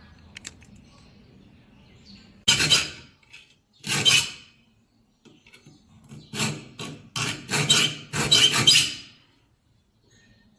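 A steel file rasping across a hand saw's teeth to sharpen them, in about seven strokes: two spaced apart a couple of seconds in, then a quicker run of shorter and longer strokes.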